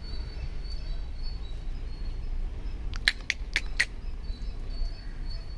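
A bird chirping four short, sharp notes a little past the middle, over a faint high note that repeats throughout and a steady low background hum.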